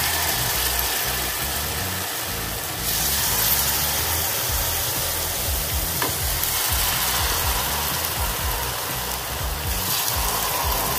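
Semolina uttapam batter sizzling in hot oil as it is ladled into the cups of a mini-uttapam pan. The sizzle is steady and grows louder about three seconds in as more batter goes in.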